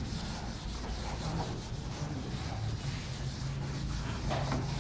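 Whiteboard duster rubbing across a whiteboard in repeated strokes, wiping off marker writing.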